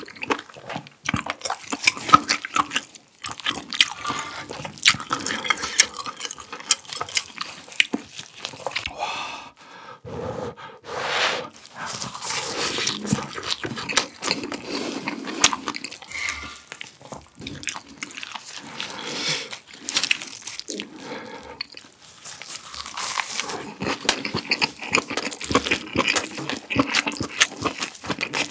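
Close-miked chewing and wet mouth sounds of someone eating spicy webfoot-octopus fried rice with mayonnaise, dense with small clicks and smacks, with utensils touching the pan. There is a breathy rush of air about eleven seconds in.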